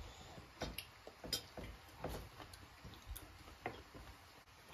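Faint sounds of a meal at a table: chewing and scattered light clicks and taps of plates and cutlery.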